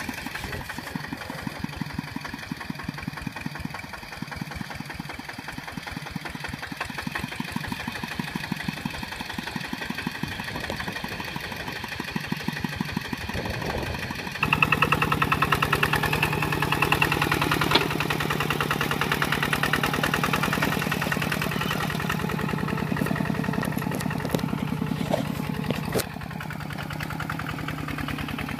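Kubota RT140 Plus walking tractor's single-cylinder diesel engine running steadily with a fast, even chugging beat while working in mud. It gets louder about halfway through and drops back near the end.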